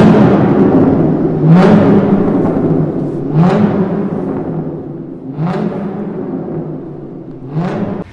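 Music with heavy drum hits about every two seconds, each with a short rising boom and a swish.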